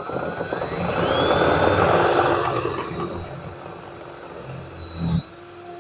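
Power drill spinning up with a rising whine, then holding a steady high whine while boring a hole, loudest in the first couple of seconds and easing off, with a short louder burst about five seconds in.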